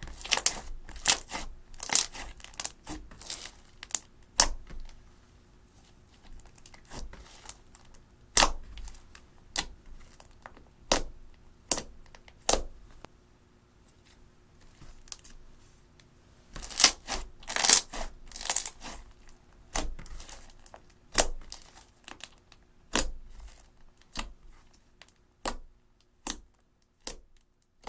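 Slime being squeezed and pressed by hand, giving irregular sharp pops and clicks, in clusters with short pauses.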